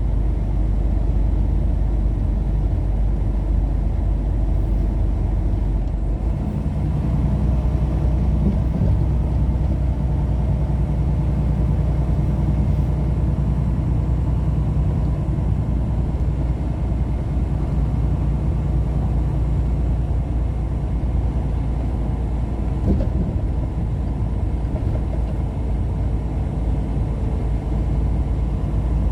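Car on the road: a steady low rumble of engine and tyre noise, with a faint engine hum that changes a little in pitch about six seconds in.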